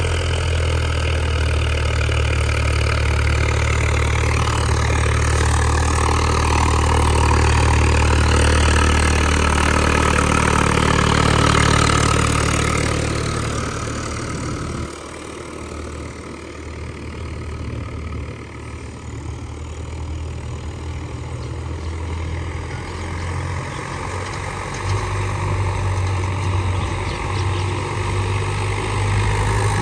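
Swaraj 744 FE tractor's diesel engine running steadily with a low hum. It gets quieter about halfway through and louder again near the end.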